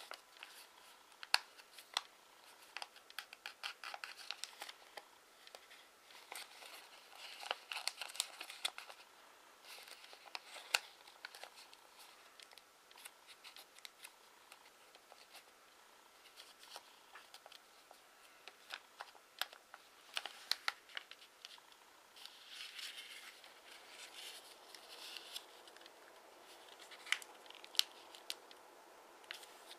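A 15 cm square of origami paper being folded and creased by hand: quiet, irregular crinkling and rustling, with many small sharp clicks as the folds are pressed.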